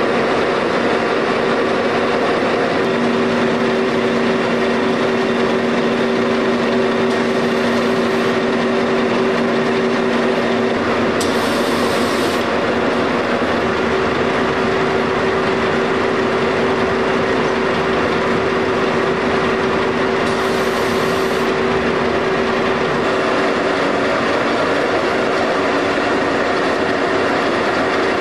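Hobema paper-towel printing and folding machine running: a steady mechanical clatter with a constant hum. Two brief hisses come about a third and two-thirds of the way through.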